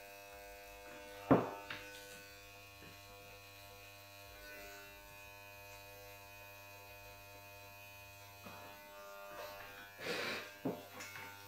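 Corded electric hair clippers running with a steady buzz while cutting hair. There is one sharp knock about a second in, louder than the clippers, and a few brief rustling noises near the end.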